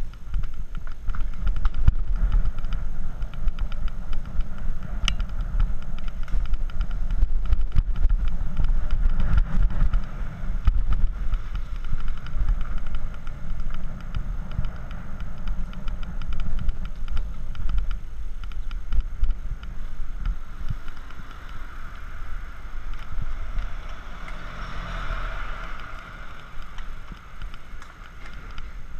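Wind buffeting and road rumble on the microphone of an action camera on a road bicycle being ridden along paved streets, with many small clicks and rattles in the first half.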